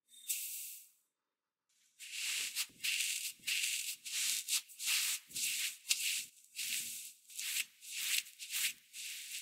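Granulated sugar pouring briefly into a glass bowl of softened butter. Then a silicone spatula scrapes and mixes the butter and sugar against the bowl in gritty strokes, about two a second.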